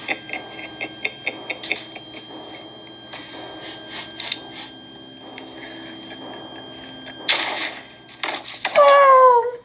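Horror-film soundtrack: a tense passage of faint clicks over a thin steady tone, then a sudden loud crash about seven seconds in, and near the end a loud scream that falls in pitch.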